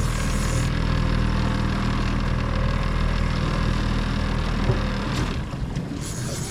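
Boat engine running steadily at low speed with a constant hum and a rushing noise over it; about five seconds in the engine sound drops away.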